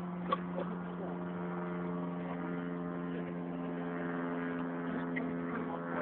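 Small boat's motor running steadily at idle alongside the dock, a steady even hum.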